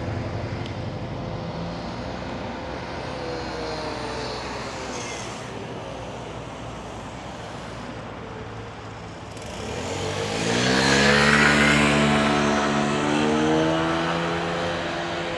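Street traffic: an engine runs steadily, then about ten seconds in a louder motor vehicle accelerates close by, its engine pitch rising in steps before it fades.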